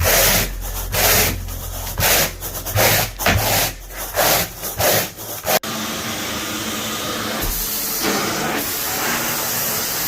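Carpet rake dragged through damp carpet pile in quick rasping strokes, about two a second. About halfway through it cuts off abruptly and a steady rushing hiss of the truckmount extraction vacuum takes over.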